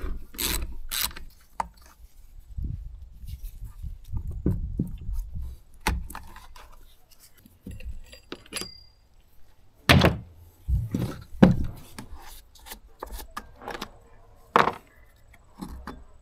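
A chainsaw being taken apart by hand: the metal saw chain clinks and rattles as it is lifted off the bar, among scattered clicks and knocks of tools and plastic covers set down on a wooden board. A few louder knocks come about ten, eleven and a half and fourteen and a half seconds in.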